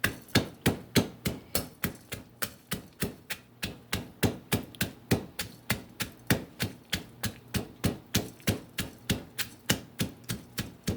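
Pestle pounding peppercorns, coriander seeds and ginger in a mortar: steady, even strikes at about three to four a second.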